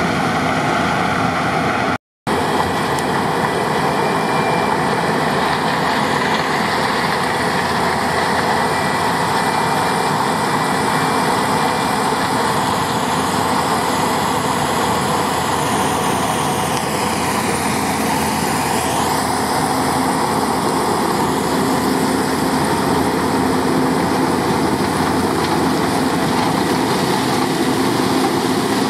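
New Holland CX 7.90 combine harvester running steadily during maize harvest, a dense mechanical din with a constant hum. A high whine falls in pitch and comes back up about two-thirds of the way through, and the sound cuts out for an instant about two seconds in.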